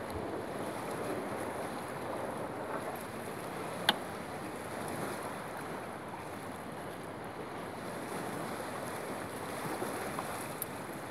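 Steady wash of lake waves with wind on the microphone, and one sharp click about four seconds in.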